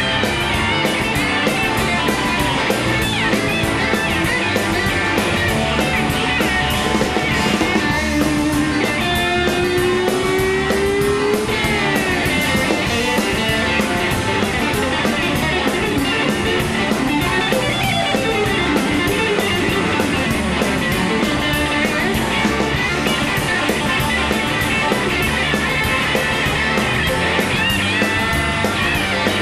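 Live rock band playing an instrumental jam: two electric guitars trade lead lines over bass and drums. About nine seconds in, a guitar holds a long note and bends it upward.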